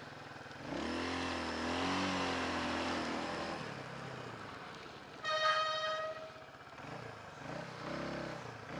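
A vehicle engine running with its pitch wavering, then a single steady horn toot lasting just over a second, about five seconds in.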